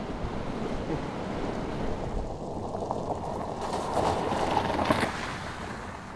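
A steady rush of moving water and wind, joined in the middle by a Toyota RAV4 driving through a shallow river ford, its tyres splashing through the water. The sound swells in the middle, then fades near the end.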